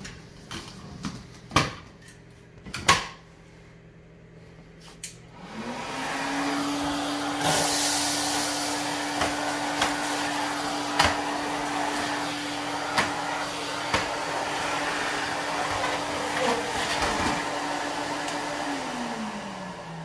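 Central vacuum system: a few loud knocks as the hose and wand are handled, then about five seconds in the suction starts with a rising hum that settles into a steady rush of air through the hose. Scattered sharp ticks follow as the floor tool works over the tile floor and picks up spilled debris, and near the end the hum falls as the unit winds down.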